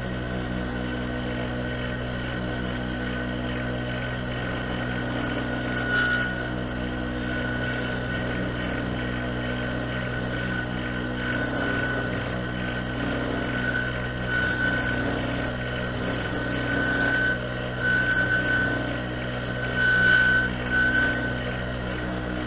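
Homemade wood lathe motor running steadily while a turning chisel is held against the spinning wooden piece, cleaning it up; the cutting adds a whine that comes and goes several times, loudest near the end.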